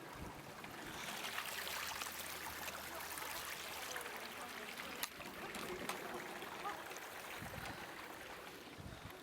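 Running water of a forest stream, a steady rushing hiss, with a single sharp click about five seconds in.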